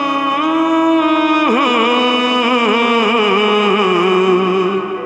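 Recorded Hindi film song: a singer holds the final word of the chorus as one long note over the backing music, steady at first and then wavering about a second and a half in, fading near the end.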